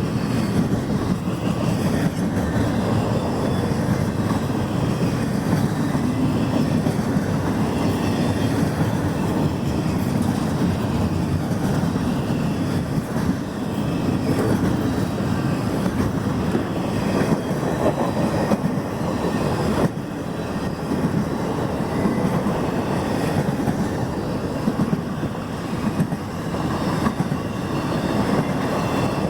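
Union Pacific freight train cars rolling past close by: a steady rumble of wheels on rail with repeated clacking over the rail joints.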